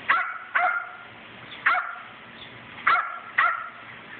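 Small dog barking: five sharp, high barks, a quick pair at the start, a single one in the middle and another quick pair near the end.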